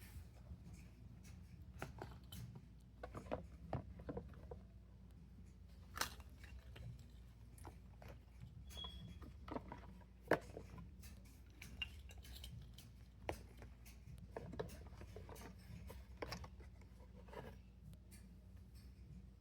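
Fidget toys being handled and sorted: scattered, irregular small clicks and taps of plastic pieces being picked up and set down, with a brief high squeak about 9 seconds in.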